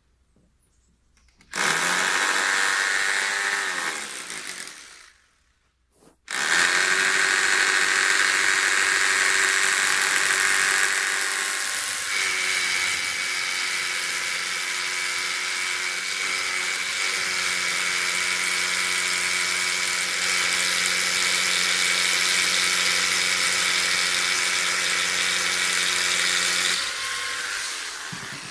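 An electric power tool's motor runs for a couple of seconds and winds down with a falling whine. After a short pause it starts again and runs steadily for about twenty seconds before slowing near the end.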